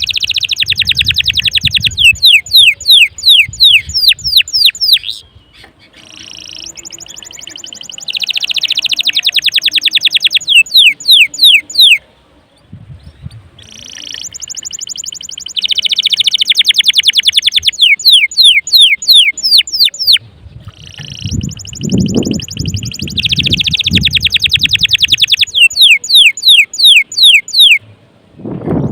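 Domestic canary singing a loud, full song: fast high trills running into strings of quick descending sweeping notes, in four bouts broken by short pauses. A few low thuds sound partway through and near the end.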